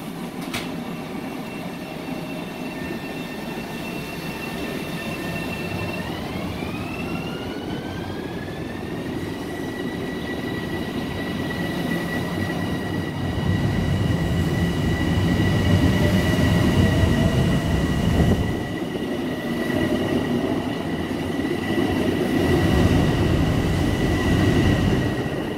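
Long Island Rail Road Bombardier M7 electric multiple-unit train pulling out of the station. Its traction motors whine, the pitch stepping up about six seconds in and then holding steady, while the wheel rumble grows louder as the cars roll past.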